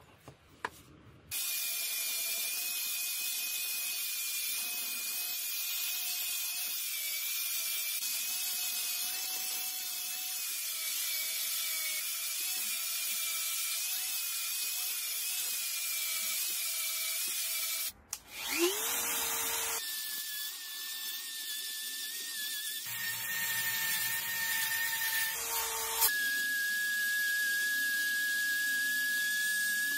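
Angle grinder with a sanding disc running against aluminium housing parts, a steady high whine with hiss. Just past halfway it stops and spins back up, and then come several shorter runs of power-tool whine at different pitches, each cut off abruptly.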